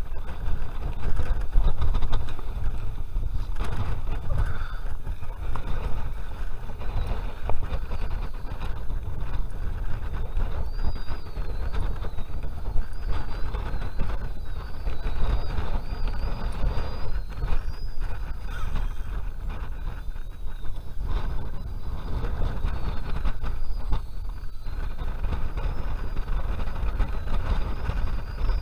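Wind buffeting the microphone of a chest-mounted action camera, an uneven low rumble.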